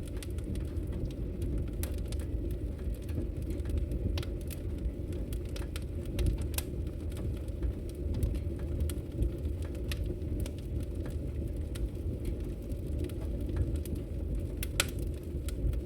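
Wood fire burning in a fireplace: a steady low rumble of flames with irregular crackles and pops, a couple of louder pops about six and a half and fifteen seconds in.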